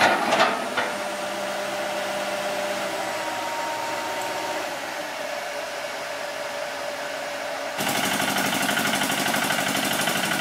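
Komatsu PC160LC excavator engine running steadily, with a faint steady whine over it. About three-quarters of the way through, it changes suddenly to a louder engine with a fast, even pulse: the single-cylinder engine of a Thai farm truck running.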